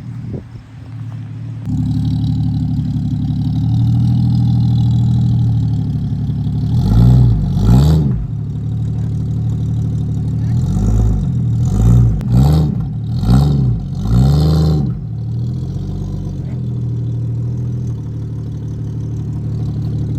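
A vehicle engine comes in suddenly about two seconds in and runs steadily, revved up and down briefly a few times about a third of the way through and again in the middle, then settles back to a steady run.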